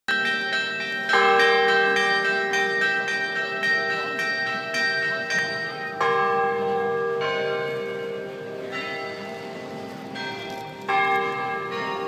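Church tower bells ringing the noon peal. A heavy bell is struck about every five seconds, three times, and lighter bells chime quickly in between, most busily in the first half.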